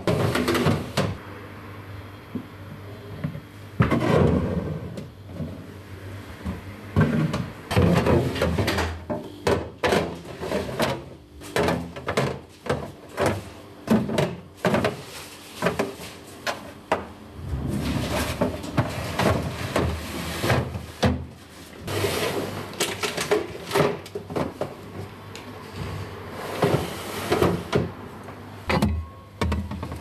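Household things being handled in a kitchen: a string of irregular knocks, clacks and clatters, busier for a few seconds a little past halfway.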